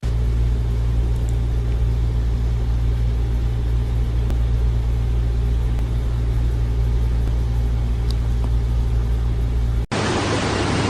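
A steady low hum or rumble, unchanging throughout. About ten seconds in, it cuts off abruptly and a steady hiss takes its place.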